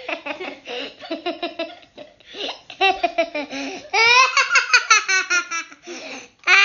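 Children laughing in repeated fits of giggles, loudest from about four seconds in.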